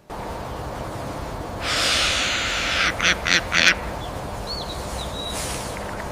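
An animal giving three short, loud calls in quick succession, just after a second-long rushing noise, over a steady background hiss. A faint, thin bird chirp follows about a second later.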